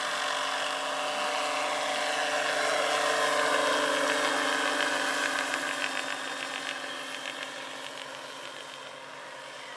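Large-scale electric RC model helicopter (AS-350 Ecureuil, 2.5 m rotor) in flight: a steady whine of the electric drive with rotor noise. It grows louder about three seconds in as the model passes, the pitch dips slightly, and it fades as the helicopter climbs away.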